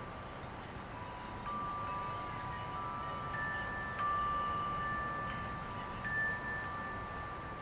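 Wind chimes ringing: several long-sustained notes at different pitches, struck one after another, the loudest strike about four seconds in, over a faint low rumble.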